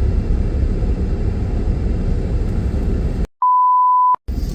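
Steady road and engine noise inside a moving car. A little over three seconds in, the sound cuts to dead silence and a single steady beep tone plays for under a second, then the road noise cuts back in.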